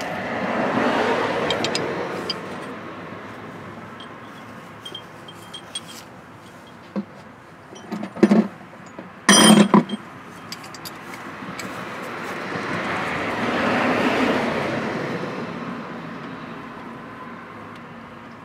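Road traffic passing by twice, each swelling up and fading away over several seconds, with a few sharp metallic clinks and knocks in between.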